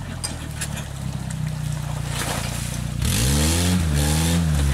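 Suzuki Vitara 4x4's engine running under load off-road, with a few knocks in the first second; about three seconds in it is revved hard, its pitch rising and wavering up and down.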